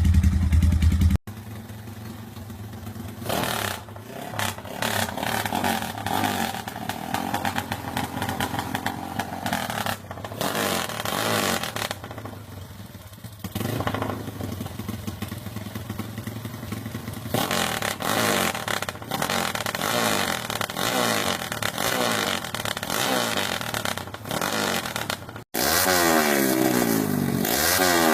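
Motorcycles with Noo Lamlukka aftermarket exhausts revving, the pitch rising and falling with repeated throttle blips. The sound cuts abruptly from one bike to another twice, and the last is louder, with quick rev sweeps.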